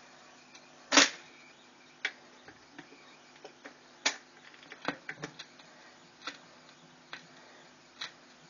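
A record changer's stylus running in the silent lead-in groove of a vinyl record: sharp surface clicks and pops every second or two, the loudest about a second in, over a faint steady motor hum.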